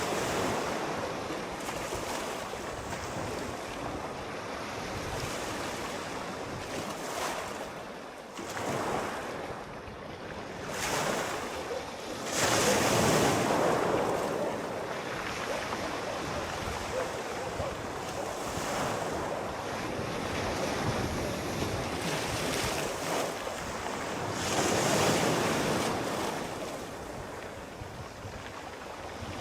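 Sea waves breaking and washing onto the shore in a continuous rushing surf, with two louder surges, one about halfway through and one near the end.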